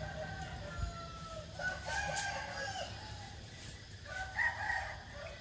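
Rooster crowing three times: a faint crow at the start, a longer, louder crow about a second and a half in, and a shorter crow about four seconds in, over a steady low rumble.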